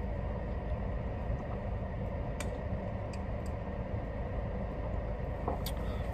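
Steady low hum of a car's cabin, with a few faint clicks and gulps as soda is drunk from a plastic bottle.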